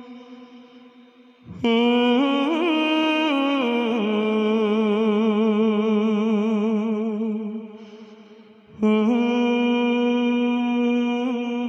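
Male naat reciter singing unaccompanied through a microphone, two long wordless held notes with vibrato. The first starts about two seconds in, climbs and falls back, then fades. The second begins near nine seconds.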